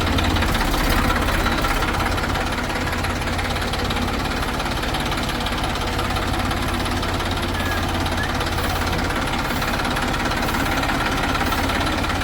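Diesel engine of heavy farm machinery running steadily, with a fast, even beat of firing pulses.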